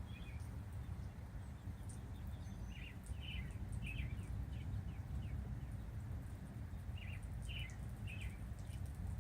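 A bird calling in two short series of quick chirps, a few seconds apart, over a steady low rumble.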